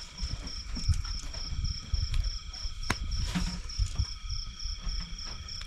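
Crickets chirping in a steady, evenly pulsed high trill of about five pulses a second, with other insects holding fainter steady tones underneath. Low soft bumps come and go, and there is a single sharp click about three seconds in.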